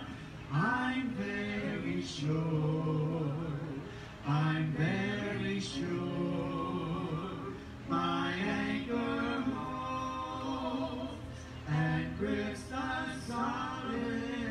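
Voices singing a hymn a cappella, in sung phrases of a few seconds each with short breaks between.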